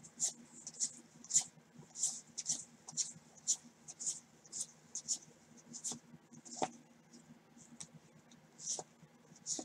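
Stiff cardboard 1989 Score football cards sliding against one another as a stack is flipped through card by card. The result is a run of short, soft swishes about two a second, with one slightly sharper click a little past the middle.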